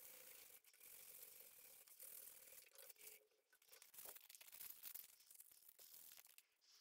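Faint, uneven scratching of sandpaper rubbed by hand around a wooden tool handle.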